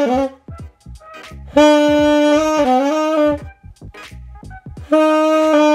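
A self-taught beginner playing a Mendini by Cecilio alto saxophone in long held notes. One note ends just after the start, and two more follow, each held about two seconds and stepping down in pitch near its end. Short clicks and thumps fall in the gaps between the notes.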